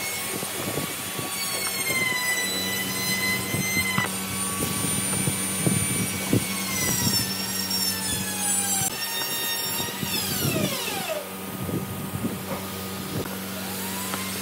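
Woodworking power tool running against hardwood: several high, squealing whines that slide in pitch over a steady low hum, with scattered knocks. About ten seconds in, the whines fall steeply in pitch.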